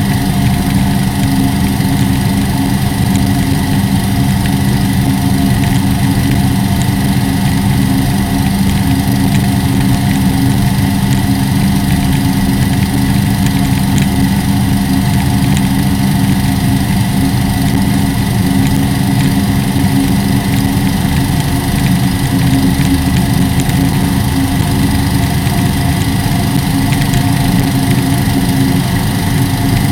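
Chevrolet ZZ4 small-block V8 of a race boat running at a steady pace, heard from on board. It runs through 180-degree headers, which give it an uneven note unlike a usual V8.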